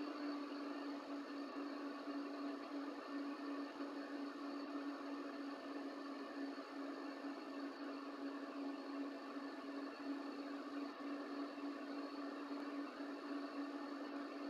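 An electrical device running off mains power with a steady hum: one constant tone over a hiss, unchanging throughout. Its owner treats the hum as a fault, since on mains power the device runs stably.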